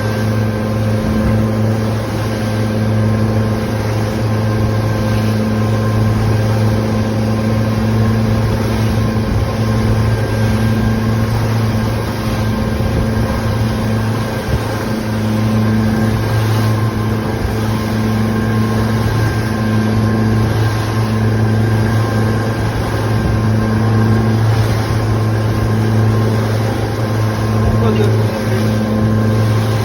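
Boat motor running steadily at trolling speed, a loud even drone with a strong low hum.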